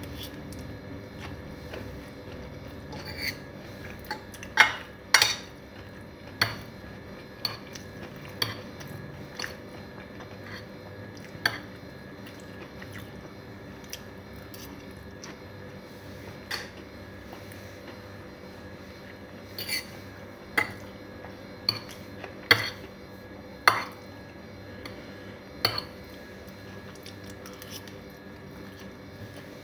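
A fork clinking and scraping against a plate of noodles while a man eats. Sharp, irregular clicks come in a cluster a few seconds in and again past the middle, over a steady low hum.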